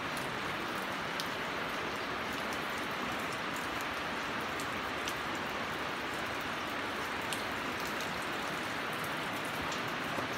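Steady rain drumming on a fabric roof overhead, an even hiss with a few faint ticks scattered through it.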